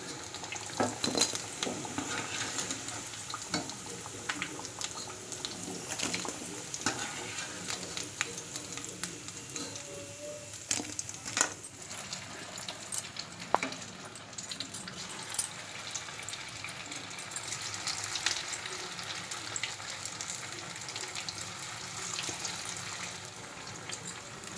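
Batter-coated boiled potato pieces deep-frying in hot oil in a kadai: a steady sizzle with scattered clinks and scrapes of a spoon against the pan as the fritters are turned and lifted out.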